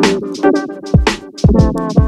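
Background music: an electronic track with a steady beat of about two drum hits a second under sustained keyboard chords.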